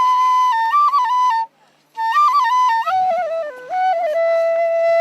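Solo flute melody. One phrase moves around a held note and breaks off about a second and a half in. After a short pause a lower phrase steps down and settles on a long held note.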